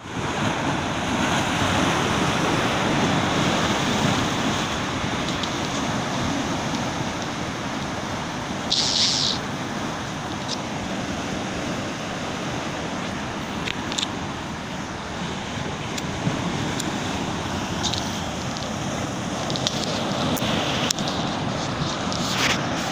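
Ocean surf breaking and washing over a low rocky shore ledge: a steady rush of whitewater that swells and eases as each wave comes in.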